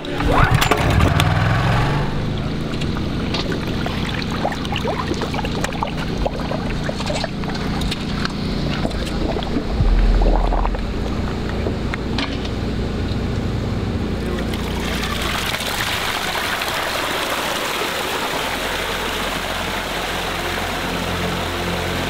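Honda EB5000X portable generator's single-cylinder engine starting and running steadily. About fifteen seconds in, the rush of water pouring down the newly filled stream and waterfall takes over.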